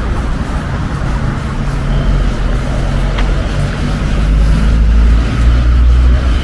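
A motor vehicle's engine running close by over street traffic noise, getting louder about four seconds in as it comes past.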